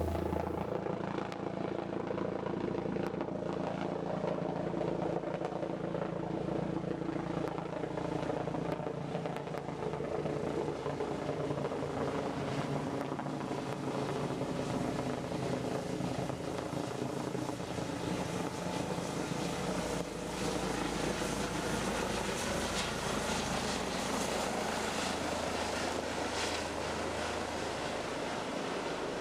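Helicopter in flight: a steady drone of engine and rotor with a hum of several even tones, changing abruptly about twenty seconds in.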